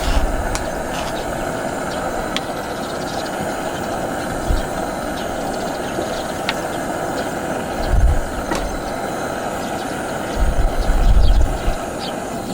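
A steady rushing noise, with a few faint clicks and short low rumbles about eight seconds in and again near the end.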